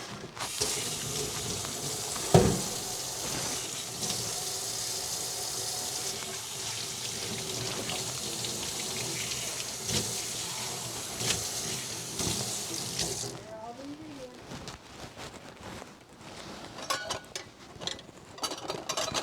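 Kitchen tap running steadily for about thirteen seconds, then shut off suddenly, with one loud knock a couple of seconds in and a few small clatters after the water stops.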